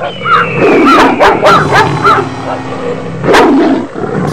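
A dog barking and yipping: a quick run of short, high yips in the first two seconds, then one louder bark a little past three seconds.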